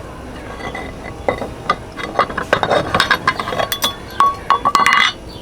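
Small metal parts and tools clinking and tapping as they are handled: a run of sharp clicks and taps that grows busier in the second half, a few of them briefly ringing.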